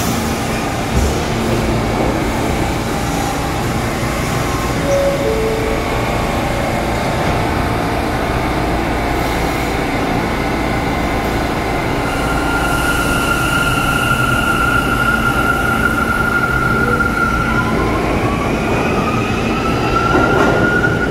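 R179 subway train in an underground station: a steady rumble, then from about twelve seconds a high steady whine, which near the end rises in pitch as the train's motors pull it out of the station.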